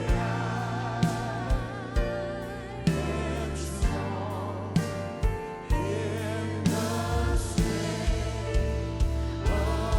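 Live worship band and singers playing a slow gospel worship song, with sung notes held over a steady bass line and a regular drum beat.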